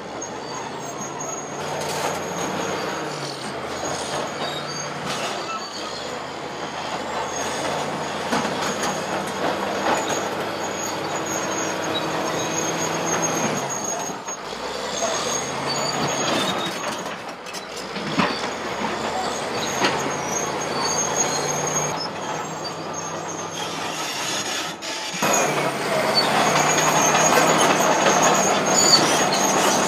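Crawler bulldozer working: its diesel engine running under load while the steel tracks clank with a thin, steady high squeal. Near the end the soil scraping off the blade grows louder.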